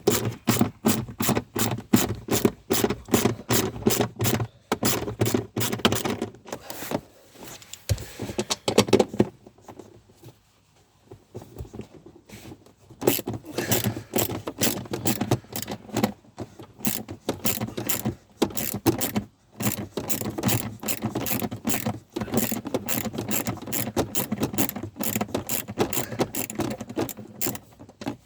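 Hand ratchet clicking in quick runs of about three clicks a second as 10 mm bolts are undone, with a short pause partway through.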